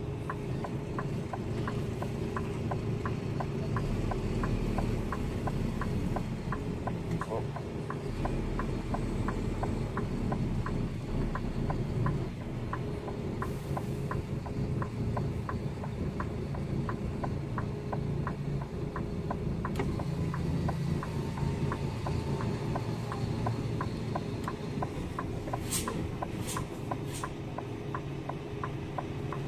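Diesel engine of a loaded brick-delivery lorry running at low revs as it creeps along, with a steady quick ticking of about three to four clicks a second over it.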